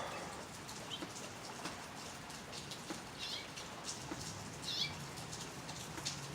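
Steady rain falling with scattered drips, and two short, high bird chirps about three and four and a half seconds in.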